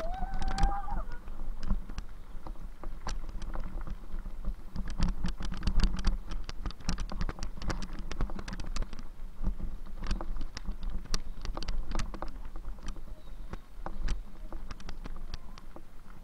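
Riding a bicycle: a steady low rumble with many irregular clicks and rattles, and a short high tone in the first second.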